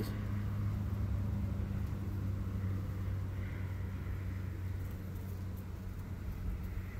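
Honey bees on a comb frame from an opened hive, buzzing in a steady low drone.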